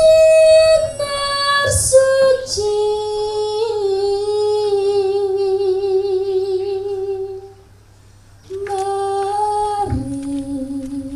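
A woman's solo voice singing slow, long-held notes with a wavering vibrato, with a short pause near the middle before the next phrase begins.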